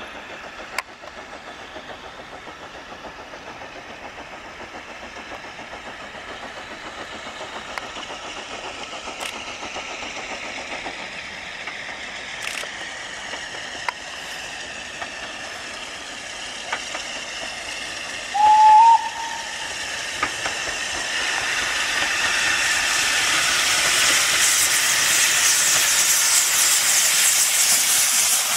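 Steam locomotive drawing closer, its steam hiss growing steadily louder, with one short, loud whistle blast, slightly rising in pitch, about two-thirds of the way through.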